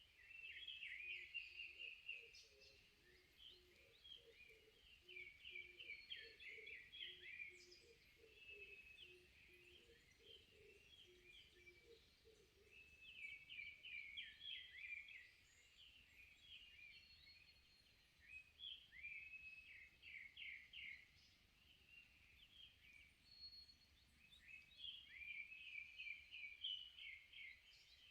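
Wild songbirds singing: bursts of quick, chirping phrases recurring every few seconds, with a lower series of short, evenly paced notes during the first half.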